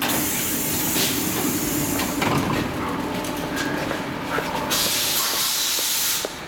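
Stockholm Metro C14 train standing at the platform with a steady low hum. Its doors open with a hiss of air, and about five seconds in a louder burst of air hiss lasts about a second and a half, then cuts off.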